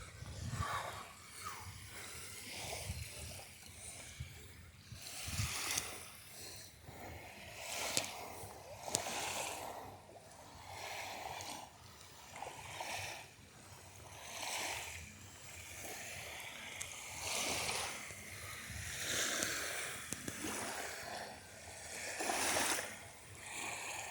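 Small lake waves washing onto the shore, swelling and falling back every two or three seconds, with a few sharp clicks in between.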